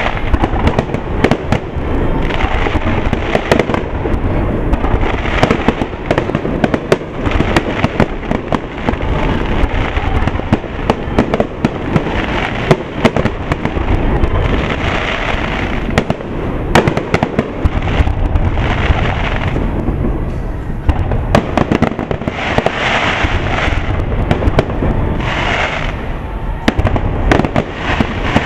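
Aerial fireworks shells bursting in quick succession during a display: a dense, unbroken run of sharp bangs, with some stretches of sparkle haze between them.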